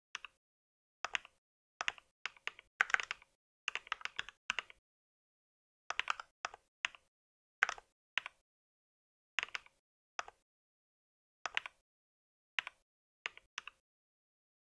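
Typing on a mechanical keyboard: sharp keystroke clicks in short, irregular bursts of one to several keys, with silent gaps between.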